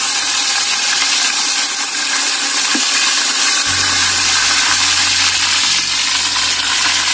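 Fennel seeds and fresh green leaves sizzling in hot oil in a large metal pot: a loud, steady frying hiss.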